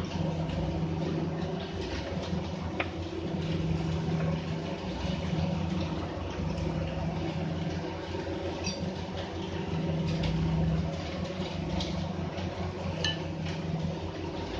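An engine running steadily at idle, a low even hum, with a few light metallic clinks of hand tools against brake parts.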